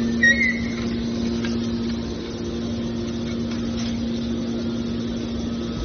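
Hydraulic scrap metal baler's power unit running with a steady hum while it pushes out a bale, with a brief high squeak just after the start.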